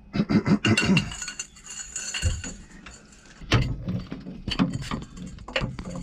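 Steel socket, extension and breaker bar clinking against each other and against metal as they are fitted together and worked onto a nut behind the engine: a quick run of ringing clinks over the first two seconds, then scattered knocks.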